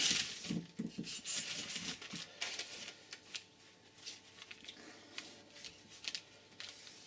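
Paper tissue rustling as it wipes over an air compressor's freshly wet-sanded cylinder head, with scattered light clicks of the part and tools on the bench. A brief scrape comes right at the start.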